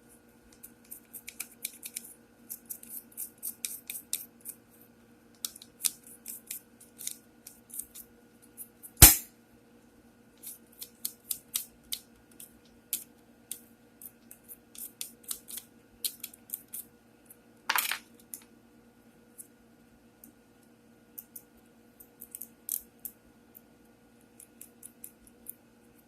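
Small metal parts of an antique sewing machine being handled and scraped during cleaning: irregular scratchy clicks and scrapes, a sharp knock about nine seconds in and a longer scrape about halfway through, over a steady low hum.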